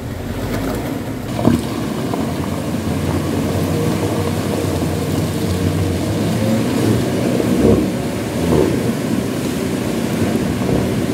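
Ford Everest diesel 4x4 running and driving over rough off-road ground, with a steady engine sound and a couple of thumps from the vehicle jolting.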